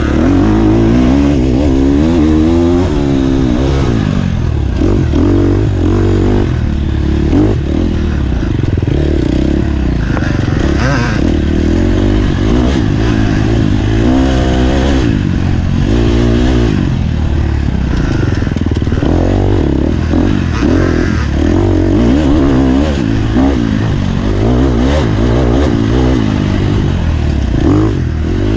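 Off-road racing dirt bike engine revving up and down again and again under hard riding, its pitch climbing and dropping every second or two.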